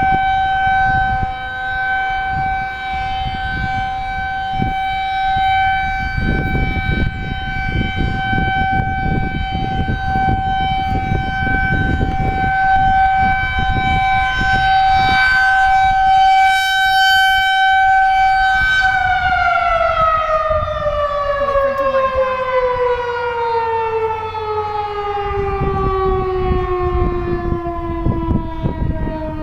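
Federal Signal 2001-DC electromechanical outdoor warning siren sounding a steady single-tone alert for its monthly test, then winding down about two-thirds of the way through, its pitch falling slowly as the rotor coasts.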